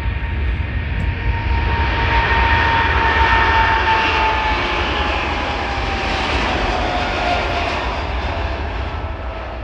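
Boeing 777-300ER's twin GE90-115B turbofans at takeoff power as the jet passes: a loud roar with a whine that slowly drops in pitch, loudest about three seconds in and fading toward the end.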